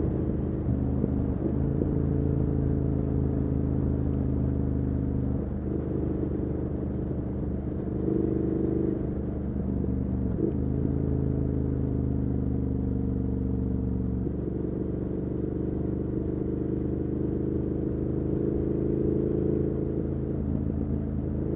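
Triumph Speed Twin 1200's parallel-twin engine running through a Weslake Shorty Pro exhaust, heard from the rider's position while riding. Its pitch steps up and down several times: about five seconds in, around eight and ten seconds, and again near fourteen seconds.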